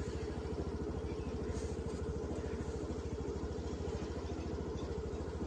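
An engine running steadily, with a fast, even beat of firing pulses.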